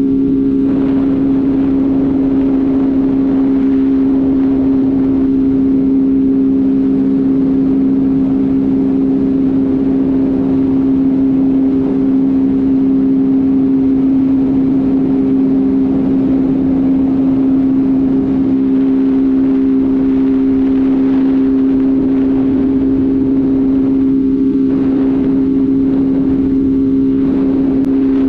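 Motorcycle engine running at a steady cruising speed, a constant even hum over wind and road noise.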